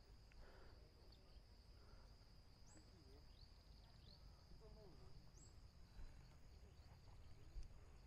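Faint forest ambience: a steady high-pitched insect drone, with a few short rising bird chirps and soft warbling calls scattered through.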